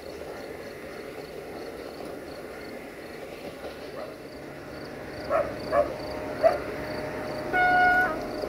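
Crickets chirping steadily with a regular high ticking. In the second half a dog barks three times, then gives one held, pitched cry of about half a second, the loudest sound here.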